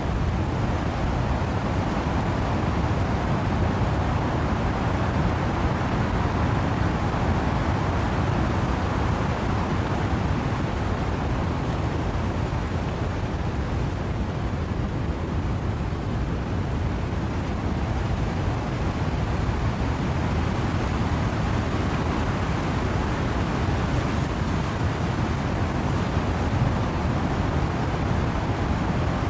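Wind and rain in trees: a steady, dense rushing noise, heaviest in the low end, with no distinct drops or gusts standing out.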